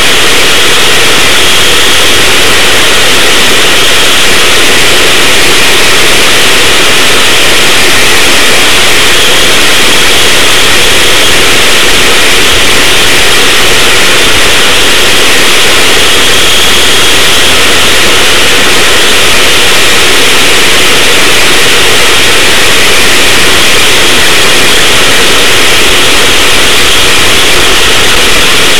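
Racing go-kart engine running steadily at speed, heard from a camera mounted on the kart: loud and overdriven throughout, with no pauses.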